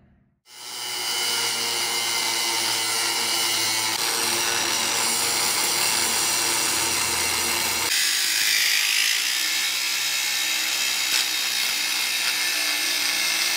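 Angle grinder with a thin cutoff wheel cutting through steel plate: a steady, continuous grinding whine with a hiss. The tone shifts about eight seconds in, losing some of its low hum.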